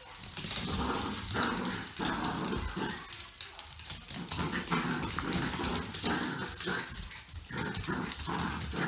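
Two small dogs, a cockapoo and a shih tzu, play-fighting, growling in short bursts again and again.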